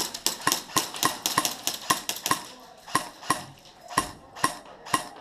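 Airsoft gunfire: a rapid, irregular string of sharp cracks from semi-automatic shots and BBs, about three a second, with a duller thump about four seconds in.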